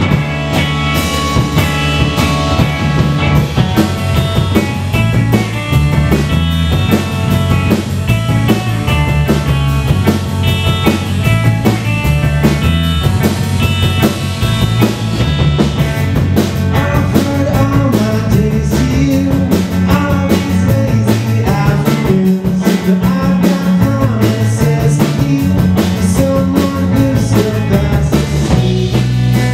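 A rock trio playing live: a semi-hollow electric bass, an electric guitar through an amp, and a drum kit, all coming in together at once and carrying on as a driving rock song.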